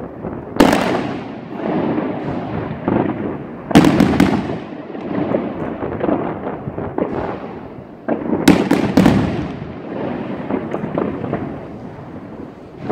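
Aerial fireworks bursting overhead: loud bangs about half a second in, another near four seconds, and a quick cluster of three or four around eight to nine seconds, with a continuous crackling wash between them.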